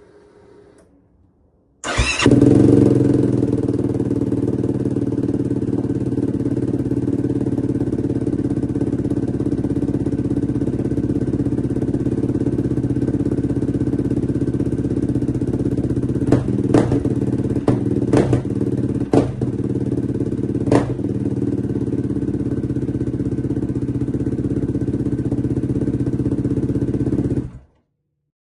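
Yamaha YFZ450R quad's single-cylinder four-stroke engine running at a steady idle through its exhaust, with a few short sharp cracks about two-thirds of the way through. The engine comes in abruptly about two seconds in and cuts off near the end.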